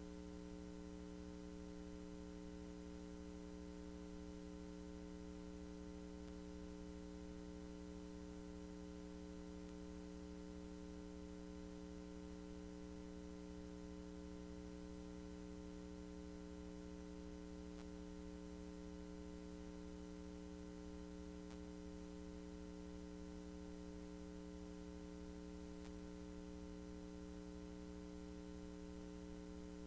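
Steady electrical mains hum, an unchanging buzz of several fixed tones, with nothing else heard.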